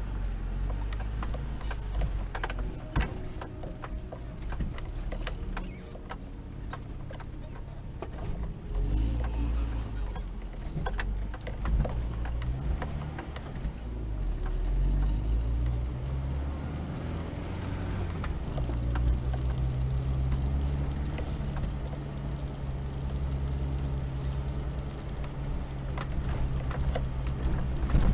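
Mitsubishi Pajero's engine heard from inside the cabin as it drives over beach sand, the revs rising and falling and then holding steady, with scattered rattles and knocks from the body and cabin over the bumps.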